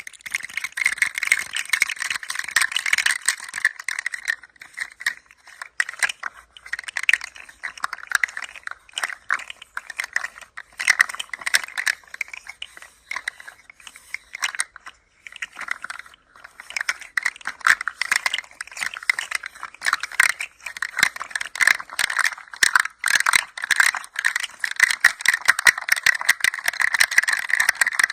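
Toy rattling as it is moved: a dense stream of small clicks and rattles that thins out for a stretch in the middle and grows busier again near the end.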